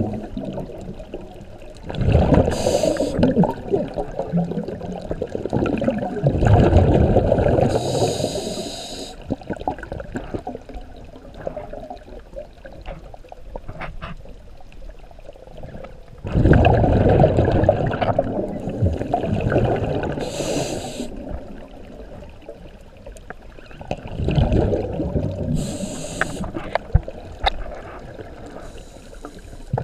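Scuba diver breathing through a regulator underwater: the hiss of each inhalation and the bubbling rush of each exhalation, in about four slow breaths with a longer gap in the middle.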